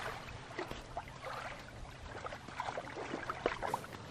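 Small waves lapping and trickling over a gravel lakeshore, with a run of faint irregular little splashes.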